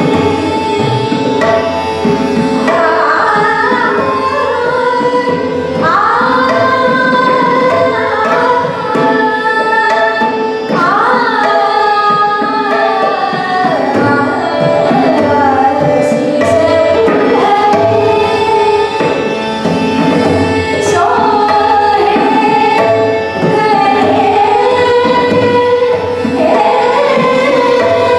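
A woman singing Hindustani classical vocal music, with tabla accompaniment over a steady drone.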